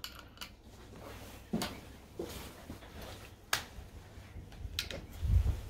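Handling of a single-shot break-action .357 Magnum gun being loaded: a few sharp metallic clicks as the cartridge is chambered and the action closed, then a burst of low thumps near the end as the gun is shouldered.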